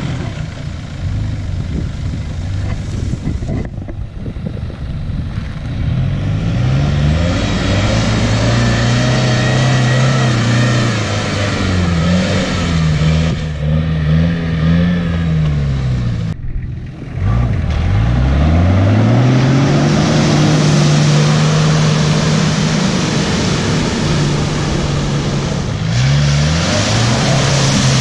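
4WD vehicle engine revving up and down over and over. It drops off briefly past the midpoint, then climbs and holds high again.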